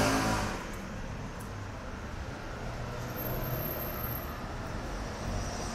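A car driving past close by, its engine sound fading away within the first half-second as it moves off, then steady low street traffic noise.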